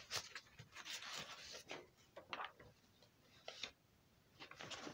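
Faint, scattered rustling and brushing of paper pages being handled, in short irregular strokes.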